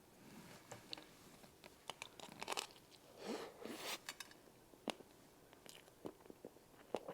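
Close-miked eating of strawberry cream cake: wet chewing with scattered sharp mouth clicks, and a brief louder swishing, swallowing sound about three seconds in.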